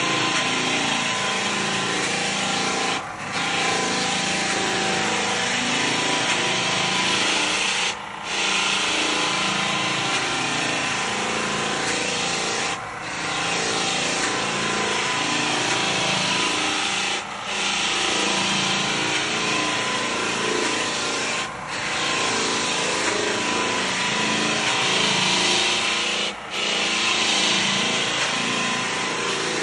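Power sander working over wooden deck boards: a continuous rasping hiss with a steady motor hum, dipping briefly about every four to five seconds.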